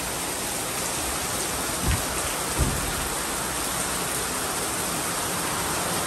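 Heavy storm rain pouring down, a steady hiss, with two brief low thumps about two and two and a half seconds in.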